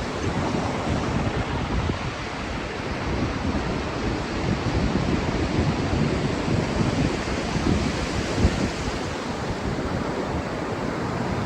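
Ocean surf washing steadily on the beach, with wind buffeting the microphone in low gusty rumbles.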